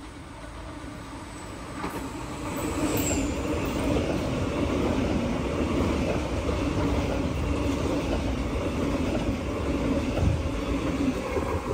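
Double-deck electric passenger train running in beside the platform: a rumble of wheels on rails and a motor hum, growing louder about two seconds in and then holding steady. A brief high squeal comes near three seconds.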